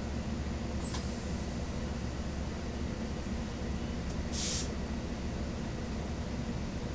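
Diesel engine of a 2008 Gillig Phantom transit bus, a Cummins ISL inline-six, idling steadily at a stop, heard from inside the bus. A short hiss of released air comes about four and a half seconds in.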